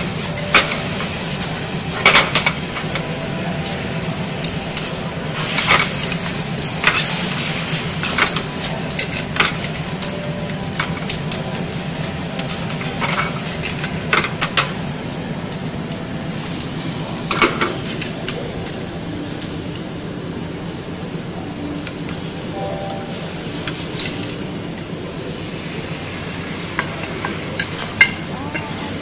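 Seafood and pasta sizzling in a metal frying pan over a gas flame. Tongs tossing the pasta give sharp clicks and knocks against the pan every second or two.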